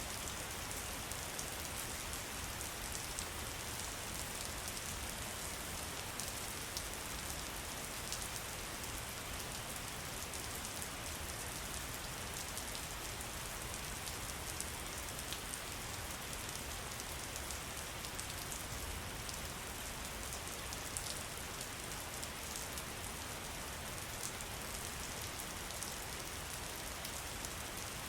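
Steady rain falling, with a constant hiss and many small drop ticks throughout.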